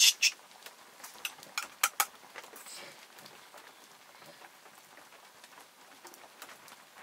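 A scattered series of sharp clicks and knocks, loudest and most frequent in the first two seconds, then sparse and faint over a low background patter.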